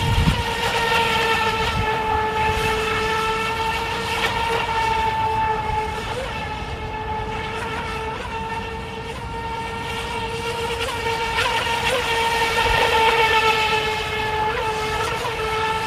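Feilun FT011 RC boat's brushless electric motor, on a 4S battery, running at speed as a steady high-pitched whine. It grows louder about a second in and again near the end as the circling boat comes closer.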